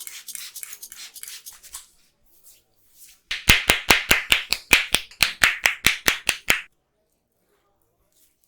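Rapid, rhythmic hand strikes of a percussive head massage: light quick pats at first, then from about three seconds in a run of about twenty loud, sharp claps, about six a second, stopping suddenly near seven seconds.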